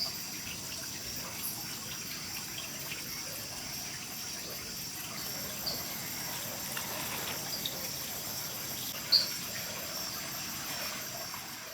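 Outdoor ambience: a steady, high-pitched insect chorus over a soft rushing background, with a few short chirps and one sharp click about nine seconds in.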